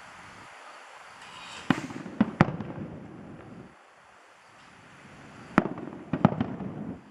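Aerial fireworks shells bursting: sharp bangs in two clusters, about two seconds in and about six seconds in, each bang followed by a rolling echo.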